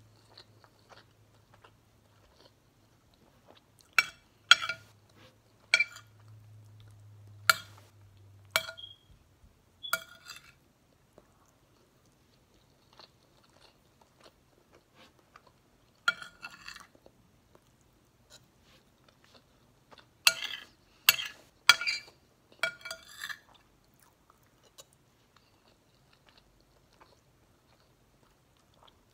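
Close-up eating: a metal spoon clinking and scraping against a bowl in several short runs, with chewing of rice and chicken in between.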